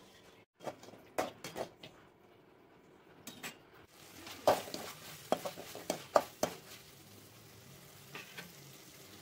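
Metal spatula scraping and knocking against an aluminium kadai as dried anchovies with small onions are stirred and fried in masala. About four seconds in, a steady sizzle rises under the scrapes, which are loudest around the middle.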